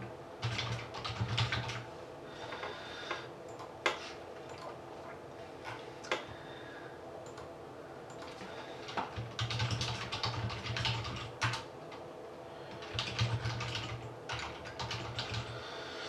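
Typing on a computer keyboard, in several quick spells of key clicks with pauses between, while entering entries into an online randomizer.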